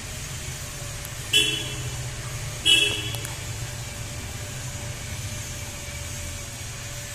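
Two short vehicle-horn toots about a second and a half apart, over a steady low background hum.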